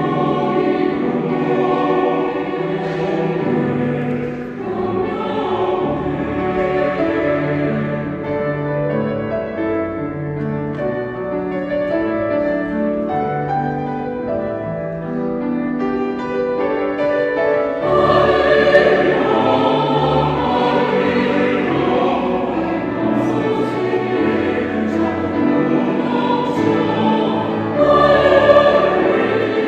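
Mixed church choir singing a Korean sacred anthem with grand piano accompaniment, softer in the middle and swelling louder and fuller a little past halfway.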